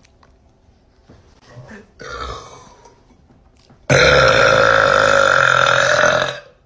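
A young woman burping: one long, loud burp held at a steady pitch for about two and a half seconds, starting suddenly in the second half. It is preceded about two seconds in by a much quieter short sound that falls in pitch.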